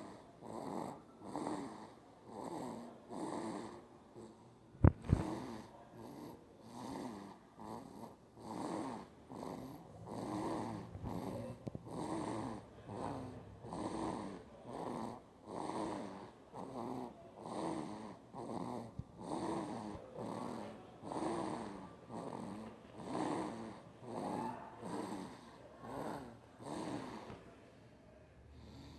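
A one-and-a-half-month-old baby snoring, with a rasping snore on each quick breath, about one a second. A single sharp click about five seconds in is the loudest sound. The snoring stops near the end.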